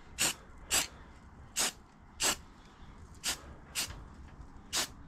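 Aerosol can of flat black spray paint sprayed in seven short hissing bursts, each about a fifth of a second long, at irregular gaps.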